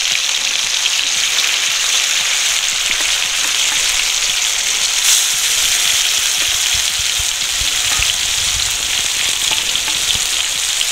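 Marinated chicken pieces sizzling steadily in hot refined vegetable oil in a metal kadai, at the start of a light fry. A flat metal spatula stirs and scrapes them against the pan, with a few low knocks in the second half.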